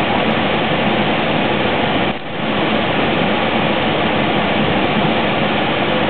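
Minivan HVAC blower fan running steadily, air rushing out of the dash vents, with a brief dip about two seconds in.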